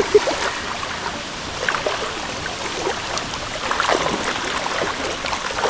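Legs wading through knee-deep river water: sloshing and splashes over the steady rush of the stream, with a stronger splash near the end.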